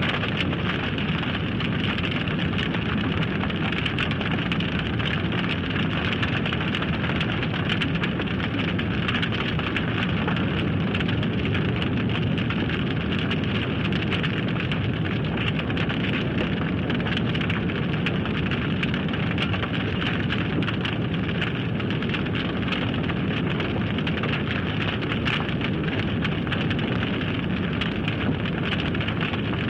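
Large fire burning with a steady roar and dense crackling from the flames.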